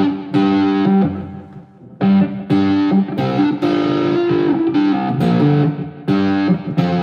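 Electric guitar playing chords, with a short break a little over a second in before the riff picks up again.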